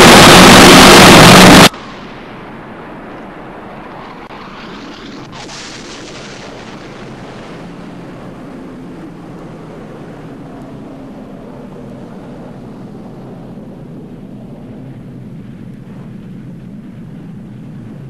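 A very loud, harsh distorted noise cuts off abruptly under two seconds in. It gives way to the steady low rumble of a nuclear explosion's roar, with a rushing swell peaking about five seconds in.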